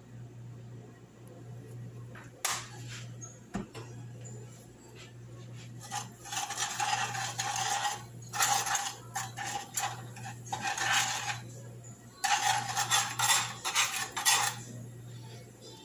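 A utensil stirring and scraping curry powder around in oil in a nonstick skillet, in two spells of quick strokes, after a few sharp knocks as the spice jar is handled over the pan.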